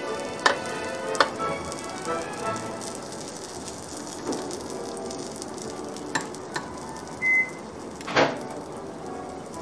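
Green beans and zucchini sizzling on an electric contact grill while metal tongs turn them, clicking against the grill plates. A short high beep sounds about seven seconds in, and a louder scrape follows about a second later.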